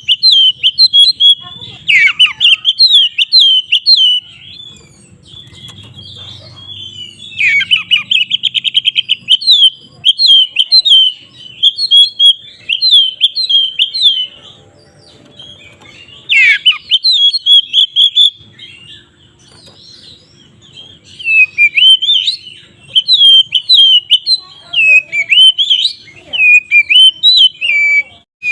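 Oriental magpie-robin (kacer) singing a fast, varied, continuous song of whistles and chattering notes, with a rapid trill and a few steep downward sweeps, in several stretches with short quieter gaps between them. This is the full, excited 'ngeplong' song that keepers play to rouse other magpie-robins to sing.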